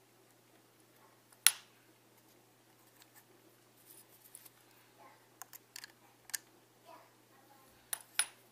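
Small screwdrivers clicking and tapping against the plastic rear assembly of a Canon EF 50mm f/1.8 II lens while its screws are being lined up: one sharp click about one and a half seconds in, scattered light clicks after, and two more clicks near the end.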